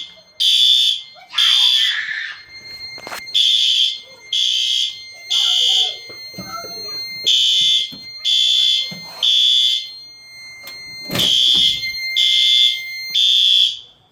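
Fire alarm system sounders beeping in the temporal-three evacuation pattern: three half-second high-pitched beeps a second apart, then a pause of about a second and a half, repeating. A steady high tone runs underneath.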